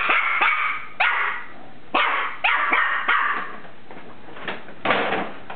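Norfolk Terrier puppy barking in a string of sharp, high barks at uneven intervals, aimed at a paper bag it does not like.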